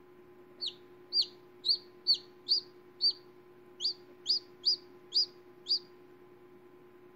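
Newly hatched chicken chick peeping: eleven short, high peeps, each falling in pitch, about two a second, stopping about six seconds in. A faint steady hum runs underneath.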